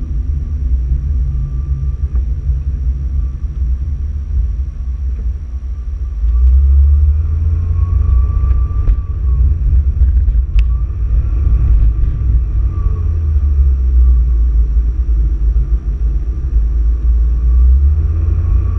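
Road and engine noise inside a moving car: a heavy low rumble that gets louder about six seconds in, with a faint whine that rises and falls. A single sharp click comes about ten and a half seconds in.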